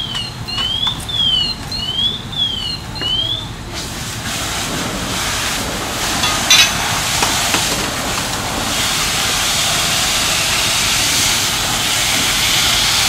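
A high electronic alarm warbles up and down about twice a second, then cuts off about four seconds in. A broad hiss then builds and holds: hose streams hitting the house fire and raising steam, with a sharp crack about six and a half seconds in.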